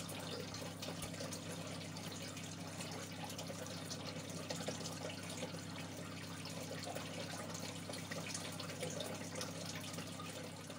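Aquarium filter running: water trickling and splashing steadily into the tank over a low, steady electric hum from the pump.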